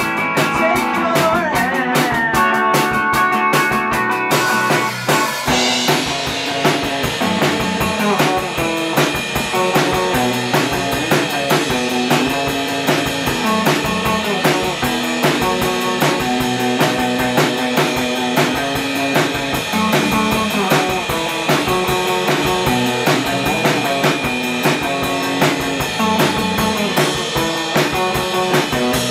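A rock band playing live with guitars and drum kit; the sound fills out and gets denser about five seconds in, then carries on with a steady beat.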